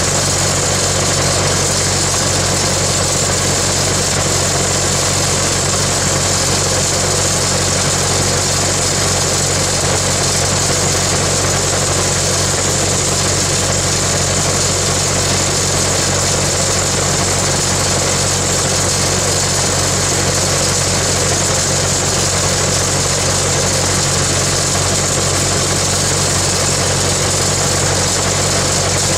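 An engine idling steadily: a constant low hum with a steady hiss above it, never changing in speed.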